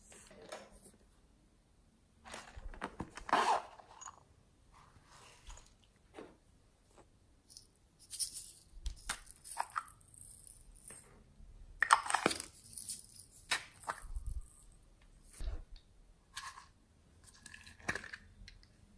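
Small plastic slime cups and containers being handled, tapped and emptied: scattered crackly rustles, clicks and crunchy taps in short bursts a few seconds apart, the loudest about twelve seconds in.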